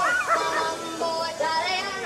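Recorded dance music with a sung vocal melody, played by a DJ over loudspeakers.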